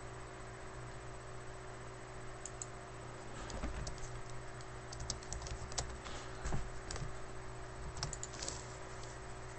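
Typing on a computer keyboard: scattered keystrokes in short spurts, starting a couple of seconds in, over a steady low electrical hum.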